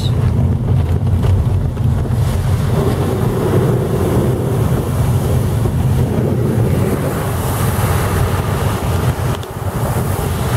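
Steady road noise inside a moving car on a wet road: a low rumble of engine and tyres with a hiss of water from the tyres. The level dips briefly near the end.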